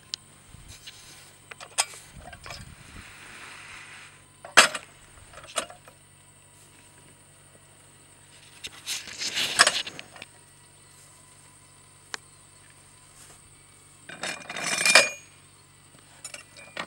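Steel parts of a percussion drilling rig's extraction platform being handled and set together: scattered sharp metallic clinks and knocks, with two longer bouts of clattering and scraping about nine and fifteen seconds in.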